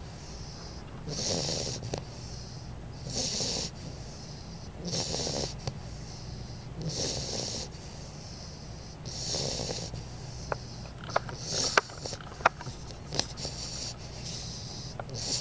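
Sleeping bulldog puppy snoring, one rasping snore about every two seconds; after about ten seconds the rhythm turns irregular and several short sharp clicks break in.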